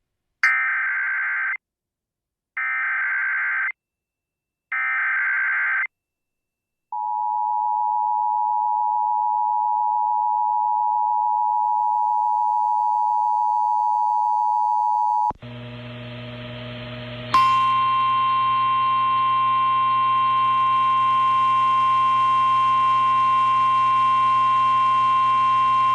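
Emergency Alert System activation tones. Three short raspy bursts of SAME digital header data come first, then the two-tone EAS attention signal, held steady for about eight seconds. Partway through, the audio switches to a humming, noisier radio feed carrying the single steady 1050 Hz NOAA Weather Radio alert tone.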